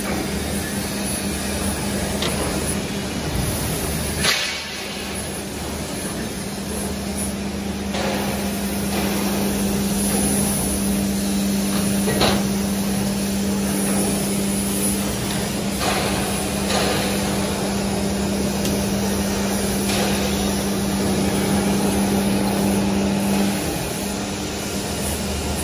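Hydraulic plate rolling machine running, its motor and hydraulic pump giving a steady hum, while steel plate is rolled between the rolls; a few sharp metal knocks ring out. The hum stops near the end.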